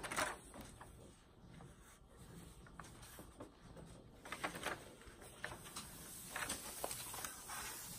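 Paper cover sheet of a diamond painting canvas rustling as it is handled, lifted and folded back by hand, in a series of short, scattered rustles.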